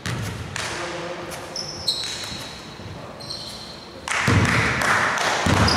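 Basketball game sounds: a basketball bouncing and short high squeaks typical of sneakers on the court floor. About four seconds in, louder voices shouting on the court join in.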